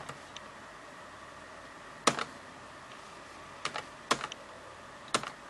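Scattered clicks from a ThinkPad laptop's keys and buttons, about eight in all, several in quick pairs of the kind a double-click makes.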